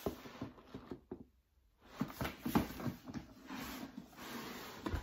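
Cardboard shoebox and lid being handled: scattered knocks and rustles, with a brief near-silent gap about a second in.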